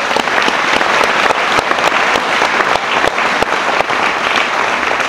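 Audience applauding, many hands clapping in a dense, steady round.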